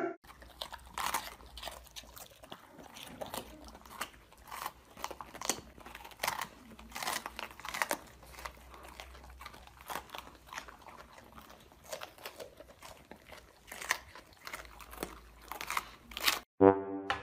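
Golden retrievers chewing raw green bell peppers: irregular wet, crisp crunches as the pepper flesh breaks. Near the end a loud brass-like musical tone cuts in.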